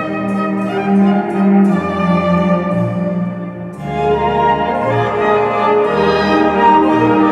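Chamber orchestra playing a waltz, bowed strings carrying the melody over a pulsing bass line. It dips briefly about three and a half seconds in, then swells back fuller.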